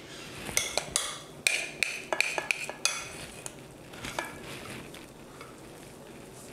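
Metal spoon clinking and scraping against a glass bowl and a glass baking dish as a thick purée is scooped and spread. There is a quick run of clicks and knocks in the first three seconds, then softer scraping with one more light clink a little after four seconds.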